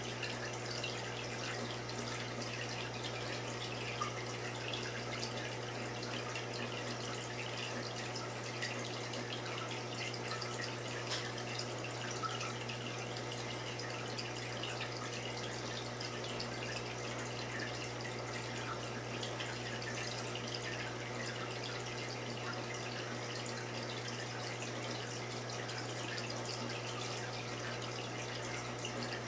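Saltwater reef aquarium's water circulation: a steady trickling and fizzing of moving water with a steady low hum.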